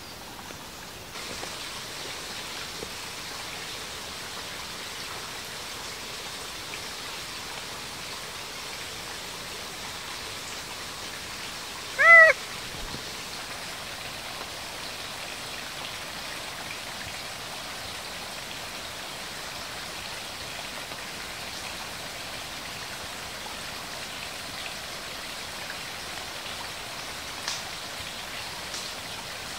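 Domestic cat meowing once, briefly, about twelve seconds in, over a steady hiss of rain.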